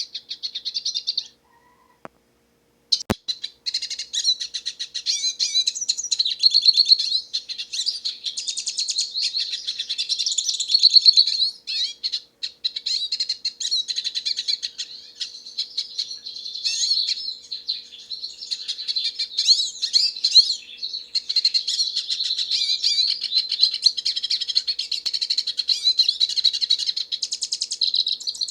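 Hooded siskin singing: a long, rapid, twittering warble. It breaks off about a second in and resumes after a short pause that holds a faint click or two.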